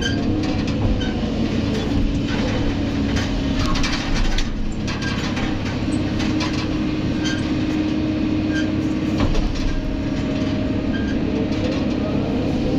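Kobelco SK200 excavator heard from inside its cab: the diesel engine runs steadily under load with a hydraulic whine. The whine slides up and down in pitch as the boom and swing move. Scattered knocks come from the bucket digging into earth and rock.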